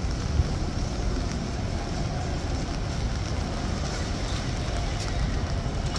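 Steady rainy street noise: rain hiss over a constant low rumble.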